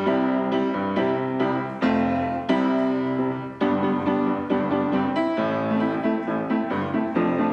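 Piano music playing, a steady run of notes.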